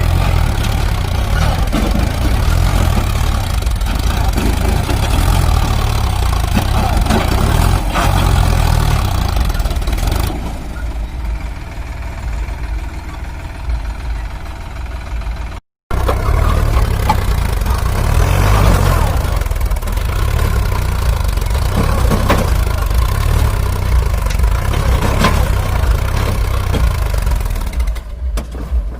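Heavy diesel engine running steadily with a deep rumble, quieter for a few seconds in the middle and briefly cutting out about halfway before picking up again.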